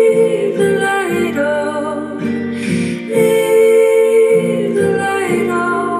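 Lo-fi folk song demo: acoustic guitar picked in a steady repeating chord pattern under a long held, slightly wavering melody line.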